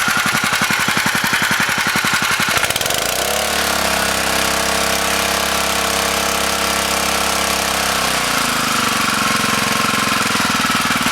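Small petrol engine of a portable water pump running steadily after a carburettor clean. Its note changes near 3 s to a smoother, lower tone and goes back to a rapid pulsing near 8 s.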